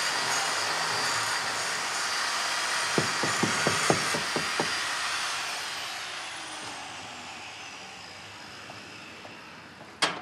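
Handheld angle grinder running steadily against a workpiece, with a few sharp knocks about three to four and a half seconds in. About five seconds in it is switched off: its whine falls in pitch and fades as the disc winds down. A sudden knock comes right at the end.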